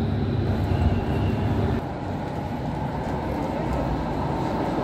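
Electric tram running on street rails, a steady low rumble with city street noise. About two seconds in, the sound drops suddenly to a quieter, steady street hum.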